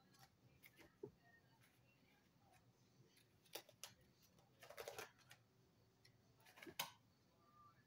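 Faint rustling and flicking of paper pages as a small tarot guidebook is leafed through, in three short flurries, the last near the end the loudest, against a quiet room.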